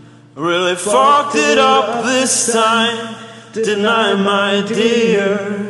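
Two men's voices singing together in two long phrases, with a short break a little over halfway through.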